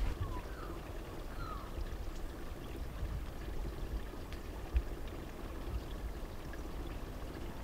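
Wind rumbling on the microphone, with two faint short falling whistles in the first two seconds.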